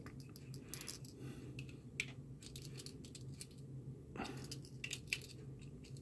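Faint scattered clicks and light taps of a small precision screwdriver and plastic extruder parts being handled while screws are driven into a 3D printer's extruder housing.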